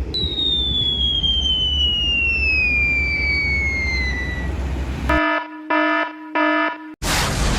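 Edited-in cartoon sound effects over a low engine rumble: a long whistle sliding steadily down in pitch for about four seconds, like a falling bomb. Then three short buzzing beeps, and near the end a loud burst like an explosion.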